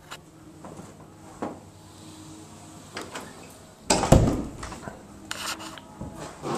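Closet door being moved, with scattered light clicks and rubbing and one loud knock about four seconds in.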